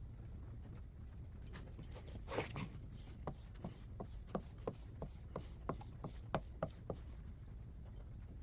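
Quick, rhythmic rubbing strokes of hand-tool work, about three a second, starting about a second and a half in and stopping near the seven-second mark.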